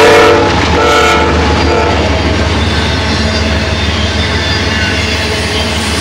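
CSX freight train's locomotive horn sounding in the first two seconds, in two short parts with a brief gap between them. Under and after it, the steady rumble of autorack cars rolling past.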